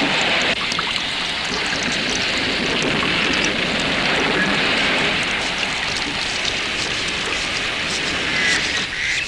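Heavy rain falling steadily, a continuous hiss with many small drop ticks on nearby surfaces.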